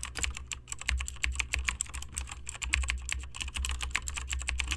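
Fast, uneven run of keyboard typing clicks, several a second, over a low hum: a typing sound effect.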